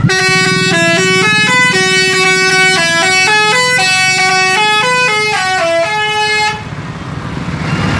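Indonesian 'telolet' bus horn: tuned air horns playing a quick multi-note tune that steps up and down in pitch for about six and a half seconds, then stops. A low rumble runs underneath throughout.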